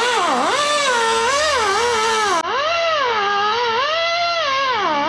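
A warbling electronic-sounding tone with many overtones, its pitch swooping up and down about once a second, like an edited-in sound effect.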